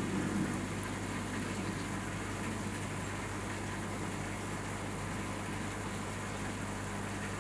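A steady low hum, as of a running motor or pump, with a few faint handling knocks in the first half second.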